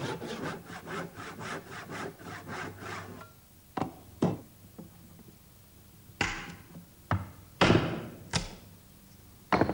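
Hand woodworking on a wooden coach body: about three seconds of quick, even strokes of a tool on wood, about four a second, then several separate sharp knocks at uneven intervals.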